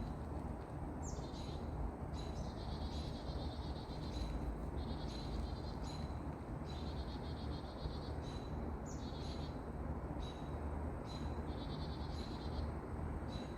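Bird giving a harsh, buzzy call over and over, roughly every second to second and a half, each call opening with a sharp, high note, over a steady low rumble.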